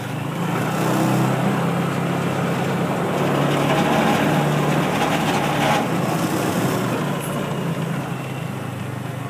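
Engine of a small farm ride-on vehicle running steadily as it drives along, with extra noise over the middle few seconds.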